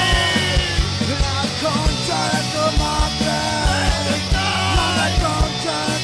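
Punk rock song: a sung vocal line over a steady, driving drum beat and band accompaniment.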